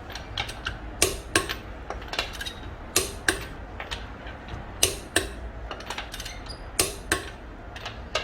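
Irregular sharp metallic clinks and knocks of tools during tyre and wheel fitting, some close together and some a second or more apart, over a low steady hum.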